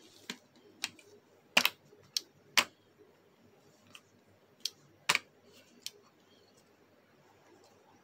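Hard plastic parts of a Bakugan Geogan figure clicking and snapping as they are folded closed by hand: about ten sharp, irregular clicks.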